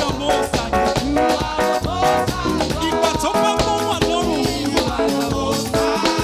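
Upbeat live Nigerian praise band music with a steady dance beat under pitched melodic lines.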